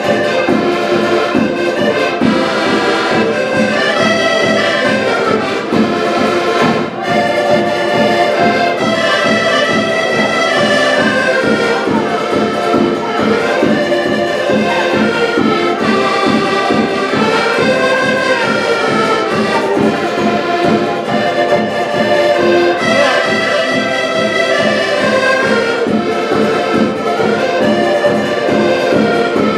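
Ensemble of accordions playing a lively folk tune together, the reedy melody moving in unison over a steady beat.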